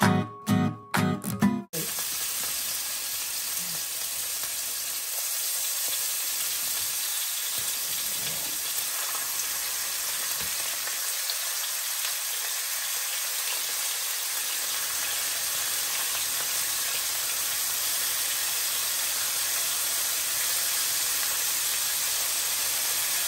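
A short snatch of intro music, then bacon strips sizzling steadily as they fry in a hot frying pan.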